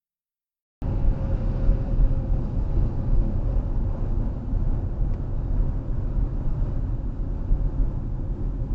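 A car driving: a steady low rumble of engine and road noise that starts abruptly about a second in.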